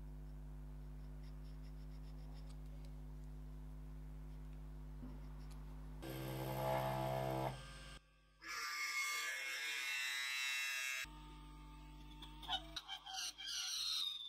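A steady low hum, then a Proxxon micro milling machine's spindle running and its end mill cutting into a brass plate with a high whine and hiss, broken by a brief pause. Scattered clicks and crackles follow near the end.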